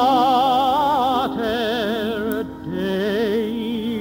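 A singer holding long notes with wide vibrato over orchestral accompaniment, with a short break between notes about two and a half seconds in.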